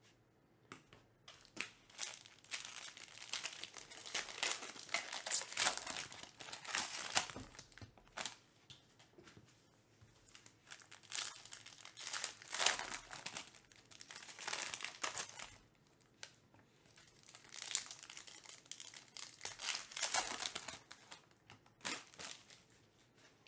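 Foil trading-card pack wrappers crinkling and tearing as they are ripped open by hand, in three bouts of rustling with short pauses between.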